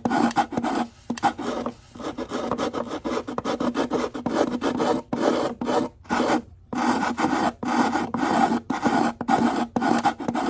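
Sandpaper rubbing on the edges of a gourd ukulele body and its wooden soundboard, in quick repeated back-and-forth strokes with short pauses.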